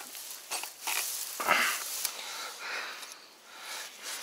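Grass and weeds rustling, with small metal clicks, as a steel KP-250 body-grip beaver trap is handled among wooden stakes. One louder rustle comes about a second and a half in.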